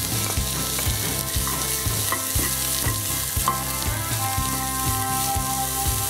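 Chopped onion sizzling in hot coconut oil with garlic and ginger paste, stirred with a wooden spatula.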